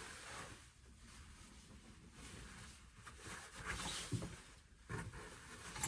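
Faint rustling and handling of the animatronic's parts and cloak during assembly, with a few light knocks near the end.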